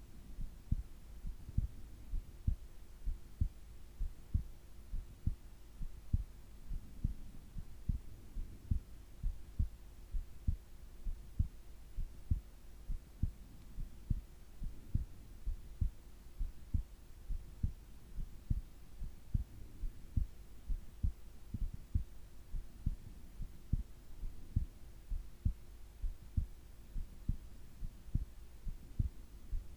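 A sleeping person's heartbeat, heard up close as low two-part lub-dub thumps at a steady rate of about one beat a second, with a faint steady hum beneath.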